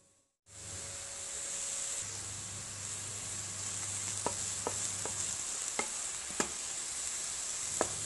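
Diced onion and green pepper sizzling in oil in a frying pan, starting about half a second in. A wooden spatula stirs them, with sharp little clicks scattered through the second half.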